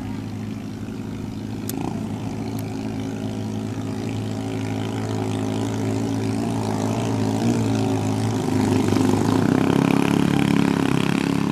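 Small engine of a racing motorized outrigger canoe (bangka) running at high speed, growing louder as the boat comes close in the last few seconds.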